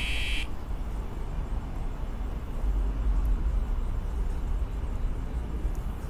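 Cicada chorus buzzing loudly and then cutting off suddenly about half a second in, leaving a steady low rumble of city traffic.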